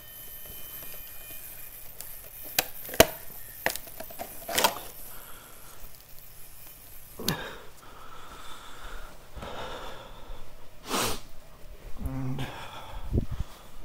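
Handling noises from a small RC helicopter and its flight battery: a few sharp clicks and knocks in the first five seconds, then several short noisy swishes of a padded jacket sleeve and breaths.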